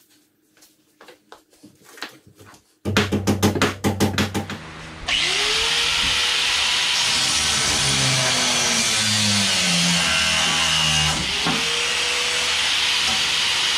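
A burst of rapid, loud rattling clicks, then an electric angle grinder cutting into the corroded old rear strut of a 2005 Toyota Corolla to release its pressure. The grinder runs with a steady high hiss, and its motor pitch sags and recovers more than once as the disc bites into the metal.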